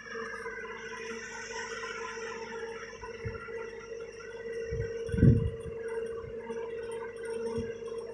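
John Deere 2120 tractor running with a PZ 165 rotary mower cutting grass, heard from behind as a steady hum with a whirring hiss above it. A low rumbling thump breaks in about five seconds in, with smaller ones around it.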